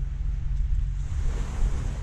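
Wind rumbling on the microphone over sea water washing, with a wash of water swelling and fading in the second half.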